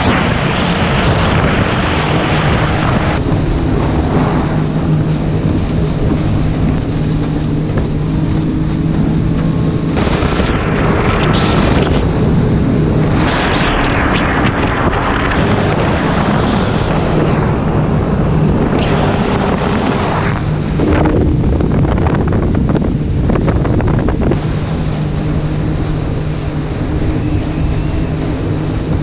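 Sea-Doo GTX personal watercraft running at speed: a steady engine drone under rushing water and wind buffeting the microphone, the rush swelling and easing a few times.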